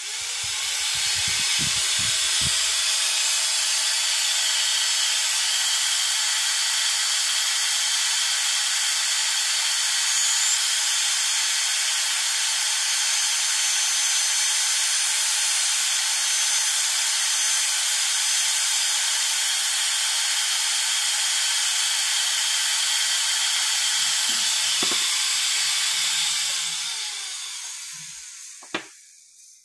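Slow-speed dental contra-angle handpiece spinning a size 2 Gates Glidden drill in a tooth's root canal. It gives a steady hissing whine while it clears out gutta-percha to open a post space, then winds down and stops near the end.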